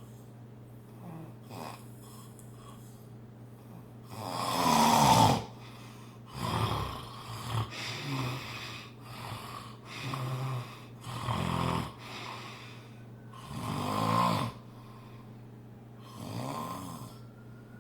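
Loud snoring: one long, loud snore about four seconds in, then a run of shorter snores every second or two, over a steady low hum.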